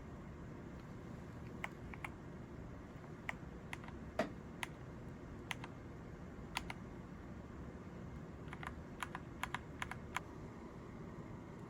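Mechanical keyboard (Skyroong GK87 Pro) being typed on slowly: scattered single keystroke clicks, with a quicker run of keystrokes near the end.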